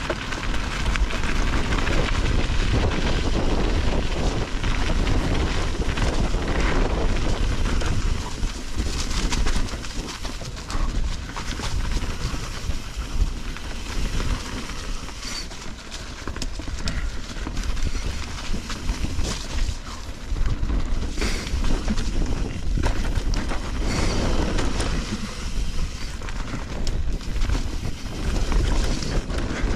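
Mountain bike rolling along a dirt trail: tyres running over dirt and roots, with frequent knocks and rattles from the bike over bumps and a steady low rumble of wind on the microphone.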